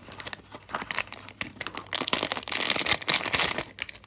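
Shiny anti-static plastic bag crinkling as hands handle it and open it. The crinkling is loudest from about two seconds in until shortly before the end.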